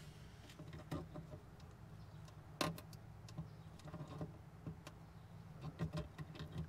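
Faint scattered clicks and rustles of wiring and a small plastic wire connector being worked loose from a pool heater's control board, with a sharper click about two and a half seconds in and a few quick clicks near the end.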